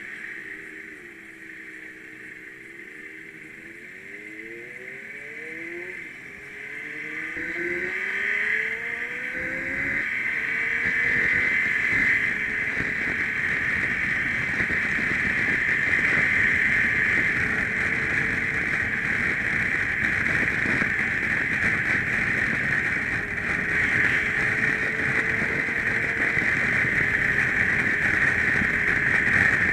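BMW GS boxer-twin motorcycle engine pulling away and accelerating up through the gears, its pitch rising and dropping back with each shift over the first ten seconds. It then settles at road speed under a steady rush of wind on the microphone, which covers most of the engine sound.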